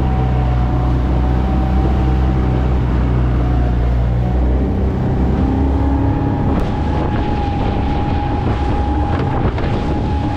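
Suzuki 20 hp outboard running steadily under way, pushing an aluminium tinny through light chop: a constant engine drone with a steady whine above it, over rushing water and wind on the microphone. The low engine rumble shifts about halfway through.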